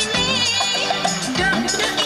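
Music with melodic lines over a steady beat.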